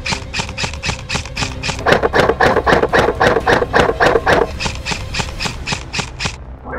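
Airsoft rifle firing a fast string of shots, about six or seven a second, stopping suddenly near the end.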